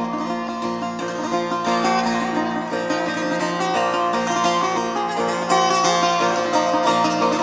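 Persian setar played solo: a quick, ornamented plucked melody over a steady low drone note.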